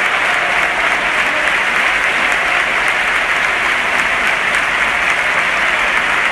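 Large football stadium crowd applauding and cheering, a steady, unbroken wall of sound.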